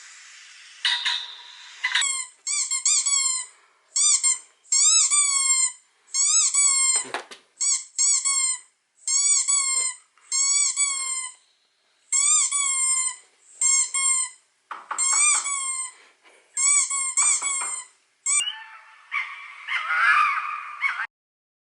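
A long run of short, high squeaks, each rising then falling in pitch, coming in quick groups of two to four. Near the end they give way to a rougher, noisier sound for about two seconds.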